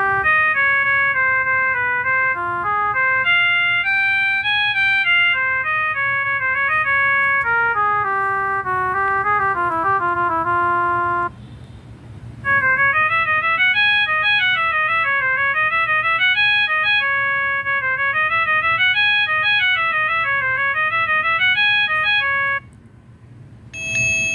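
Built-in ringtones of a Viettel V6217 mobile phone: a simple electronic melody plays and stops about eleven seconds in. After a brief pause a second, quicker tune of bouncing up-and-down note runs plays, and near the end a third tune starts.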